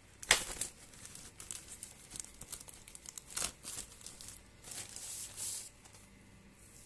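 Clear plastic film crinkling and tearing as it is handled and pulled off a honeycomb activated-carbon air purifier filter. Irregular crackles, the sharpest about a quarter second in, die down about a second before the end.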